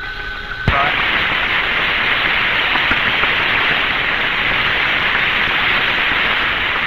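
Steady hiss of radio static on the Mercury capsule's voice link, cut off above the upper midrange like an old band-limited channel. The first moment is quieter with a faint steady tone, then a click under a second in as the full hiss comes back.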